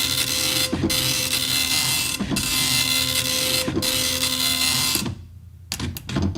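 Dot matrix printer printing: the print head's dense rasping buzz runs in passes about a second and a half long, with a brief pause between passes. The printing stops about five seconds in, followed by a few short mechanical clicks and knocks.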